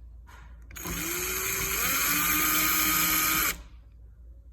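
Power drill driving a mounting screw into the smart deadbolt: the motor comes on about a second in, its whine rising as it spins up, runs steadily for about two and a half seconds, then stops abruptly.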